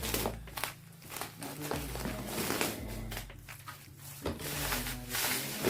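Background pop music in a gap between sung lines, with a steady bass line, and a few brief knocks and rustles.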